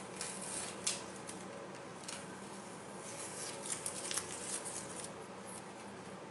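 Masking tape being picked and peeled off a painted plastic model part by fingertips: faint scratchy ticks and small rustles, with a quick cluster of little clicks a little past halfway.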